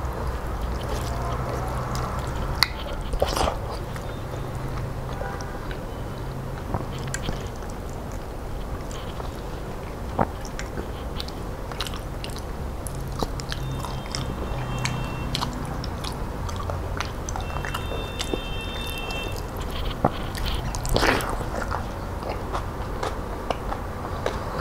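Close-up eating sounds of a person chewing rice and dal, with wet mouth clicks and smacks and fingers squishing and mixing the food on a steel plate, over a low steady hum.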